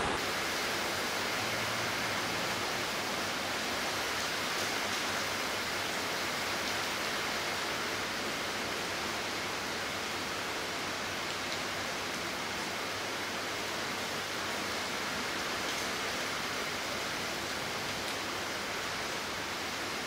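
Heavy typhoon downpour: torrential rain falling in an even, unbroken hiss.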